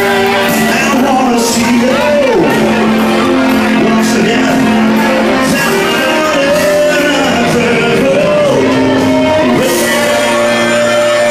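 Amplified music with a man singing through a handheld microphone, his voice sliding between notes and holding long ones over sustained chords.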